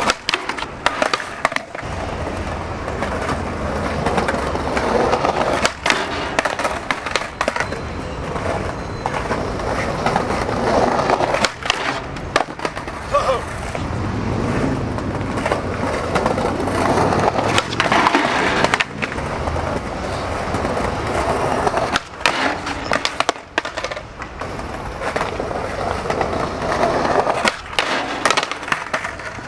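Skateboard wheels rolling over smooth stone paving, broken by repeated sharp cracks and clacks of the board: tail pops, landings, and the trucks hitting and grinding a ledge.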